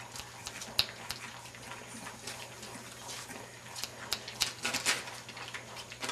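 English bulldog puppies moving about on newspaper: paper rustling and crinkling with scattered light clicks and scrabbles, busiest about four and a half to five seconds in.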